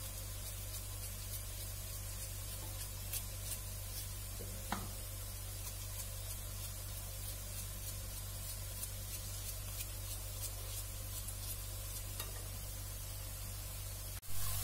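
Onion, garlic and carrot frying gently in olive oil: a steady faint sizzle with scattered light crackles over a low hum, with a couple of soft knife clicks from courgette being cut. The sizzle gets suddenly louder right at the end.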